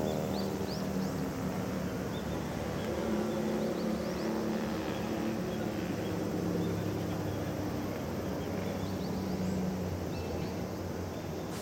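Open-air ambience dominated by a low, steady engine drone from some distance, its pitch shifting slightly, with a few short high bird chirps over it.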